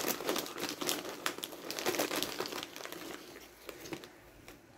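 Crunchy Mexican Street Corn Cheetos being chewed, close to the microphone: rapid crackling crunches that thin out and fade over the last second or two.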